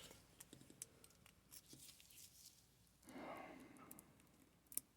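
Near silence: quiet room tone with a few faint small ticks and a soft brief rustle about three seconds in.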